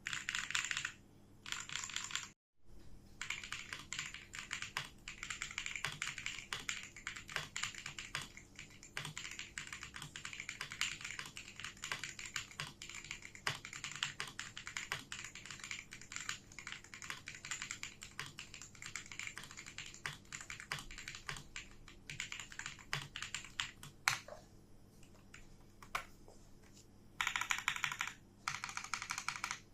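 Fast typing on a Vortexseries Mono Series mechanical keyboard with JX Jade White switches: a dense, irregular run of key clicks. The keystrokes thin out to a few scattered clicks for a few seconds near the end, then pick up again.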